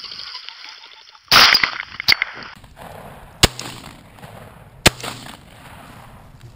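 Shotgun shots at a flushed pheasant. A very loud close blast comes about a second in and rings briefly, with a sharp report half a second later. Two more sharp reports follow about a second and a half apart.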